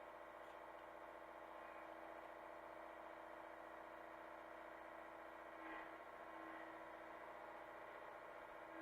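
Hitachi mini excavator's diesel engine running steadily, faint, with a slight rise in level a little before six seconds in.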